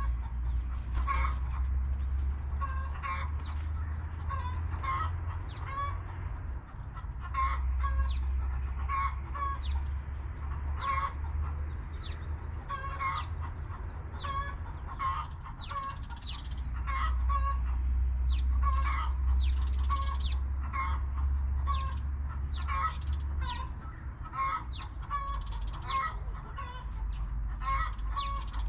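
Backyard hens clucking on and off, short calls repeating every second or so, over a low rumble that comes and goes in stretches of several seconds.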